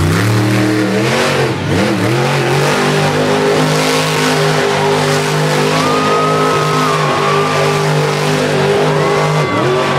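Grinder monster truck's supercharged V8 engine revving hard, dropping and climbing twice in the first two seconds, then held at high revs until it eases off briefly near the end.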